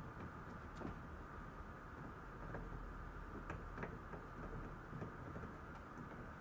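A few faint, sharp clicks and taps from a Maltese puppy's claws on a plastic tray as it shifts about and noses in the corner, the clearest pair about three and a half seconds in, over a steady background hum.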